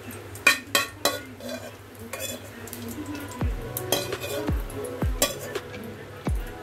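A steel spoon clinking and scraping in a non-stick kadai as fried cashews, almonds and raisins are scooped out of the hot oil, which sizzles lightly. A few sharp clinks come in the first second. Background music with a deep beat comes in about halfway.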